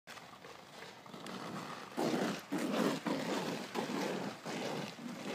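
Scraping, crunching strokes on an ice-covered street, a run of them about two a second starting about two seconds in, quieter toward the end.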